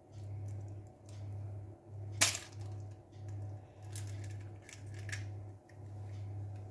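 A raw egg cracked open with one sharp crack about two seconds in, then a few faint clicks of the shell being pulled apart, over a low steady hum.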